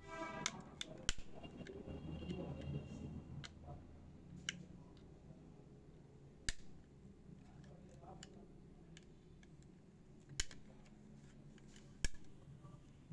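Sharp plastic clicks as the snap-fit clips of an Adata HD330 portable hard drive's plastic casing are pried loose with a thin metal tool: about seven separate snaps at irregular intervals, the casing coming apart near the end.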